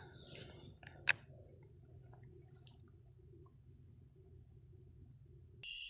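Insects droning steadily at a high pitch, with one sharp click about a second in. Shortly before the end the drone breaks off abruptly and a lower-pitched insect drone takes over.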